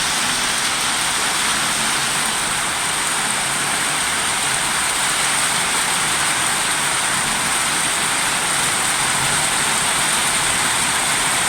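Torrential water rushing in a steady, even roar that does not let up.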